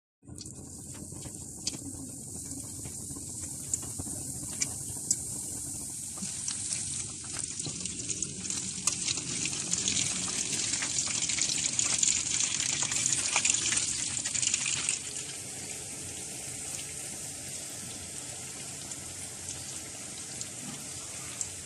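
A steady high hiss with scattered crackles and pops, louder for several seconds in the middle.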